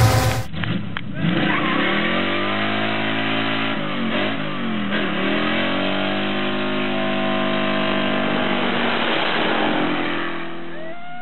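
Muscle car's V8 engine doing a burnout: the revs sweep up and down several times, then hold high and fairly steady while the rear tyres spin, and ease off near the end.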